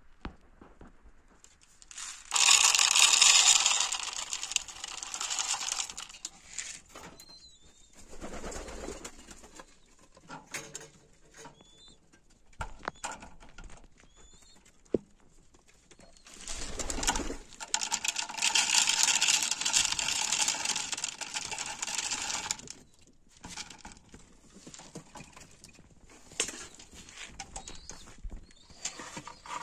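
Domestic pigeons cooing in a loft, with handling noise. Twice, at about two seconds and about sixteen seconds in, a rushing, hissing noise runs for several seconds and is the loudest sound.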